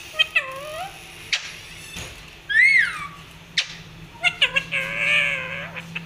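Pet parakeets calling: a few loud pitched calls that sweep up and then fall, with two sharp clicks between them. Near the end comes a quick string of short notes that runs into a longer wavering call.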